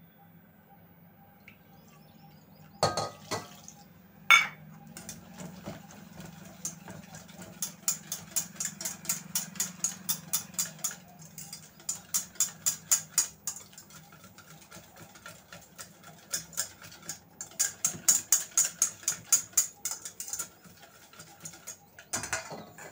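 Wire whisk beating a curd and gram-flour batter in a stainless steel bowl, ticking against the bowl about five times a second in two long runs. Two sharp metal clinks come shortly before the whisking starts.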